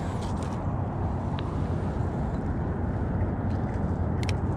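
Steady low rumble of wind buffeting the microphone, with a few faint clicks near the end as hands work a spinning reel.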